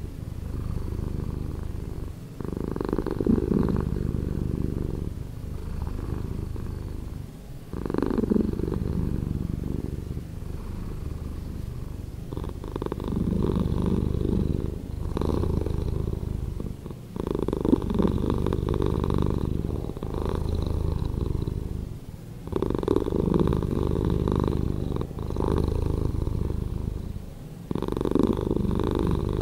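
Domestic cat purring continuously, the recording slowed down so the purr is deeper and slower than natural. It swells and ebbs with each breath, the phases changing about every two and a half seconds.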